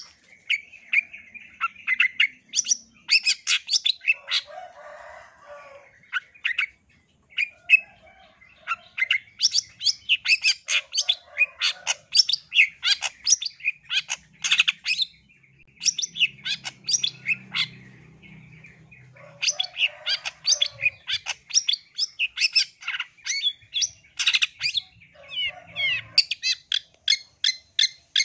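Long-tailed shrike (cendet) singing hard: rapid runs of short, sharp chattering notes in bursts, broken by brief pauses.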